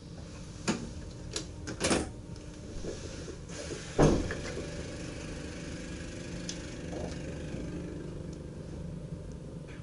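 Several clicks and knocks, then a louder thump about four seconds in, over the steady hum of a stationary VIRM double-deck electric train's cab.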